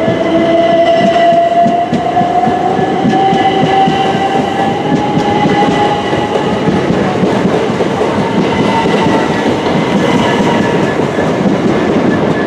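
Southeastern Class 375 Electrostar electric multiple unit pulling away from the platform: its traction motors whine in a tone that rises over the first six seconds as it gathers speed, over steady wheel-on-rail rumble and clatter.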